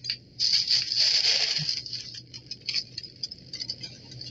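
A sheet of tissue paper rustling and crinkling as it is picked up and handled, densest in the first couple of seconds, then lighter scattered crackles.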